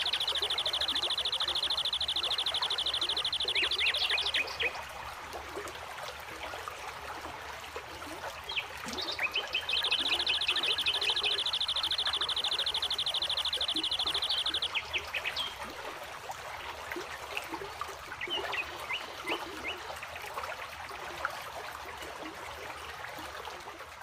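Stream water running over rocks, with a bird calling over it. Two long, rapid, high trills of about five seconds each: the first ends about four and a half seconds in, and the second runs from about ten to fifteen seconds. Short chirps come between and after the trills.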